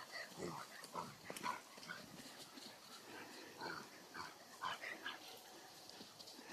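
Dogs at play making a string of faint, short whimpering sounds at irregular intervals, with no barking.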